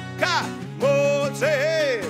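Acoustic rock performance: two acoustic guitars playing chords under a male lead singer. Two long sung notes are held in the second half.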